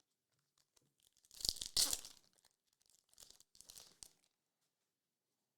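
A foil trading-card pack wrapper being torn open and crinkled: two loud ripping rasps in a row about a second in, then softer crinkling a couple of seconds later.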